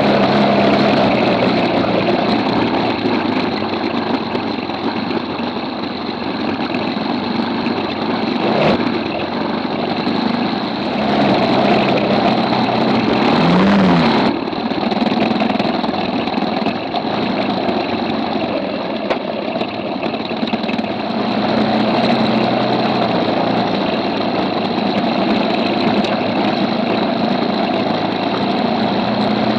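KTM 640's single-cylinder four-stroke engine running as the bike rides a dirt trail, with noise from the knobby tyres on gravel and stones. The engine goes up and back down briefly about halfway through.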